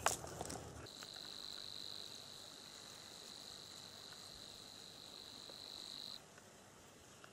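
A steady, high-pitched animal trill, one unbroken call starting about a second in and stopping abruptly some five seconds later; a faint click right at the start.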